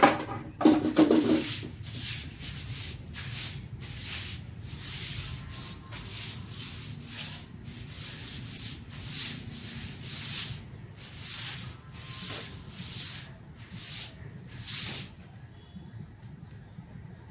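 A stick broom scrubbing a wet concrete floor: repeated swishing strokes about one or two a second, loudest near the start, stopping shortly before the end.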